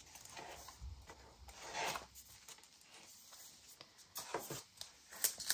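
Faint rustling and soft scraping of loose paper pieces and journal pages being handled, with a few quicker rustles from about four seconds in.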